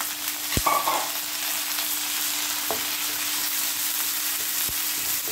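Sliced onion and freshly added chopped tomato sizzling in hot oil in a nonstick kadai, stirred with a wooden spatula that scrapes the pan and knocks against it a few times. The tomato has just gone in over the softened onions, the start of a curry-leaf and coriander gravy base.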